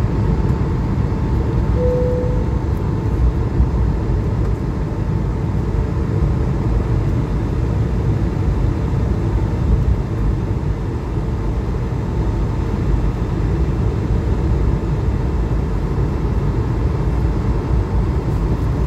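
Airbus A220-100 heard from the cabin at takeoff thrust: its Pratt & Whitney PW1500G geared turbofans run steadily with a deep rumble and a steady high hum as the jet lifts off and climbs. A short tone sounds about two seconds in.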